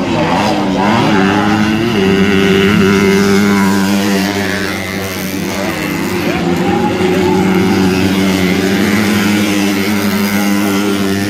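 Small racing motorcycle engines running hard on a dirt motocross track, a steady high drone whose pitch drops and climbs again as the riders shift and take the jumps, once in the first two seconds and again about six seconds in.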